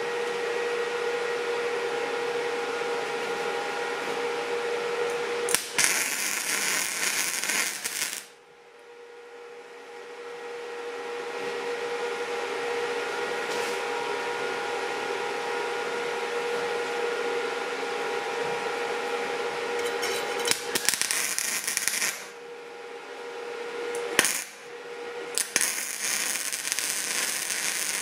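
MIG welding arc from a Stahlwerk MIG 135 IGBT inverter welder, crackling and spitting in short test beads, which the owner says he is making without shielding gas. There are four bursts: the first lasts about three seconds, the second a second and a half, the third is brief, and the fourth starts near the end. A steady hum runs underneath.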